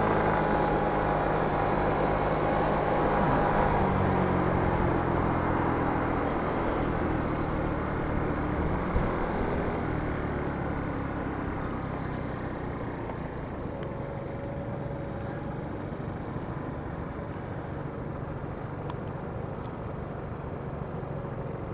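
Motor scooter riding on a city road: engine hum with wind noise on the microphone, the engine note dropping and the sound slowly fading as the scooter slows.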